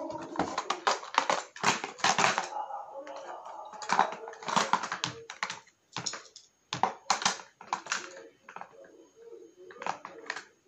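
Irregular plastic clicks and clatter as a clear plastic compartment case holding die-cast toy cars is handled and its lid opened.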